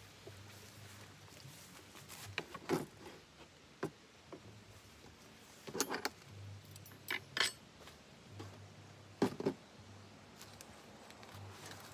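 Dishes, a pot lid and utensils being handled on a camp table: several separate clinks and knocks scattered through, with quiet between them.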